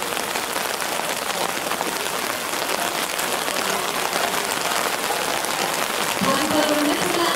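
Steady rain pattering on a crowd's umbrellas, a dense fine crackle of drops. Near the end a single voice calls out over it.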